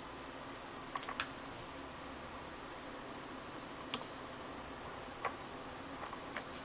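A few light, sharp clicks from alligator-clip test leads and capacitor wires being handled, over a steady faint hiss.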